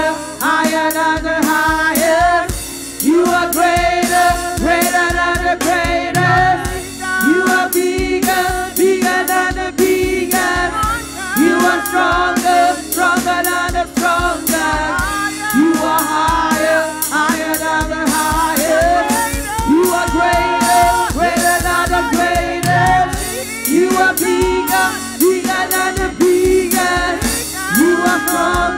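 Gospel praise team of women singing together into microphones, a lead voice over the group, backed by instruments with a steady drum beat.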